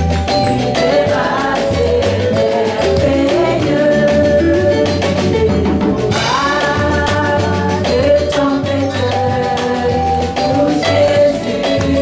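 A woman singing a worship song into a microphone over bass and percussion accompaniment, with a steady pulsing beat; about six seconds in her voice slides up into a held note.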